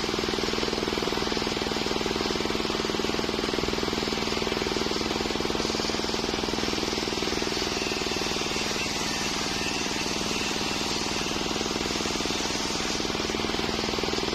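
Shop-built circular sawmill running at a steady speed, its engine and blade making a constant mechanical drone with no change in pitch.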